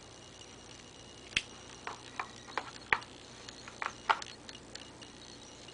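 A white mouse's claws clicking and tapping on a clear plastic tub: about ten sharp, irregular ticks, starting about a second in.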